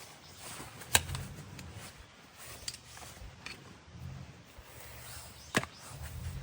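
Firewood being chopped: two sharp wooden strikes about four and a half seconds apart, with a few fainter knocks between.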